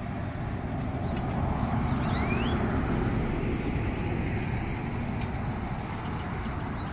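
Steady outdoor background rumble of traffic or wind, with one short rising bird call about two seconds in.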